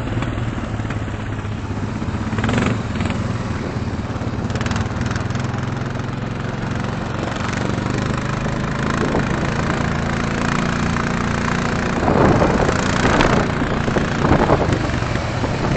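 ATV engines running as the quads slide on snow-covered ice, a steady engine hum with louder bursts of throttle about twelve and fourteen seconds in.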